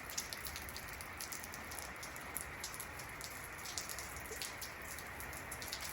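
Steady rain falling, with many small individual drop ticks throughout.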